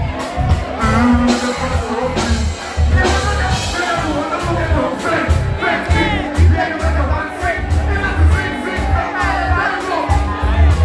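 Live concert sound through a PA: a performer's vocals into a handheld microphone over a loud, bass-heavy beat, recorded from within the crowd.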